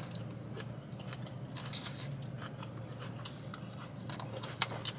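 Close-miked chewing of a mouthful of salad greens and chicken, with crunching and small wet mouth clicks, over a low steady hum.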